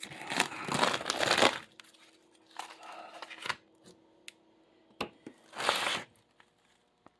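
Crinkling and scraping of a furnace air filter being handled and pulled from its slot. It comes in several bursts, the loudest in the first second and a half, with a few sharp clicks.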